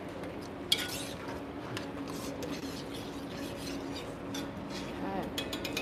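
A spoon stirring and scraping through a thick, simmering meat-and-pea stew in a pot, over a steady low hum. There is a light click about a second in and a few small clinks near the end.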